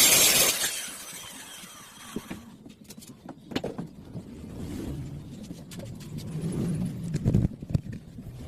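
A woodworking power tool running loudly cuts off about half a second in and winds down. Scattered clicks and knocks follow, with a few sharper knocks near the end.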